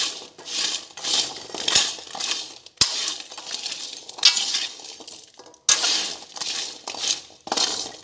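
A stainless steel ladle stirring chestnuts and coarse salt in a nonstick pan: scraping, rattling strokes, about two a second, as the chestnuts dry-roast in the salt.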